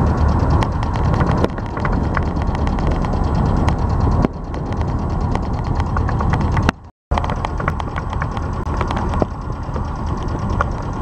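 Wind buffeting the microphone on a moving sailboat, a loud rumbling rush with a rapid ticking running through it. The sound breaks off for a moment about seven seconds in.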